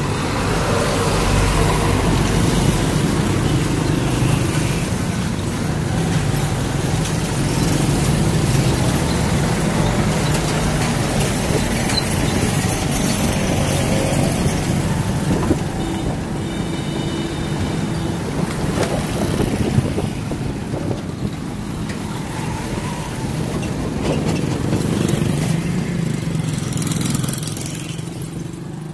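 Street traffic heard from a moving road vehicle: a steady engine hum under continuous road noise, with other motor vehicles nearby.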